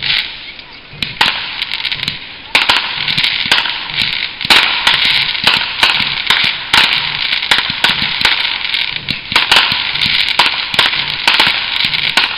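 Aerial fireworks going off: a few separate bangs at first, then from about two and a half seconds in a fast, nearly unbroken string of sharp bangs.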